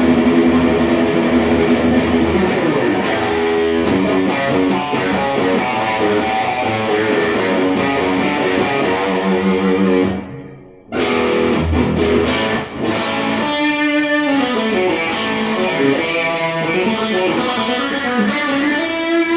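Suhr Standard Plus electric guitar being played: a steady run of picked notes and lines that breaks off briefly about halfway, then picks up again and ends on a note sliding upward.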